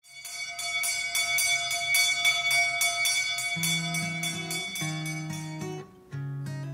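Guitar music starting suddenly: a high, ringing pattern with a quick even pulse, joined about three and a half seconds in by low picked notes. The sound dips briefly just before the next chord near the end.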